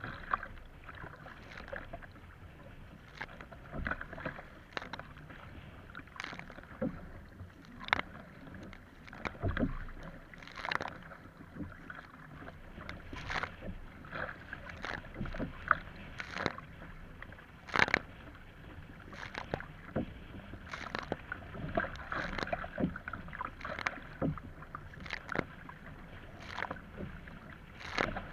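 Surfski paddling in choppy water: the paddle blades splash in about once a second, alternating sides, over a steady wash of waves against the hull.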